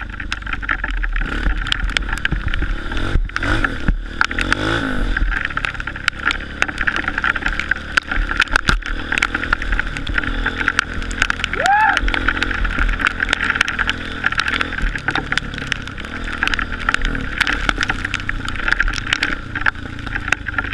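Honda CRF230 dirt bike's air-cooled single-cylinder four-stroke engine running under way, its pitch rising and falling with the throttle, with many short knocks and clicks over it. A brief rising whine comes about two-thirds of the way through.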